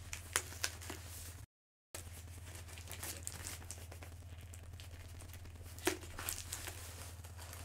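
Mail package being opened by hand: scattered rustling, crinkling and tearing of the packaging, with a few sharper clicks, over a steady low electrical hum. The sound cuts out completely for about half a second near the start.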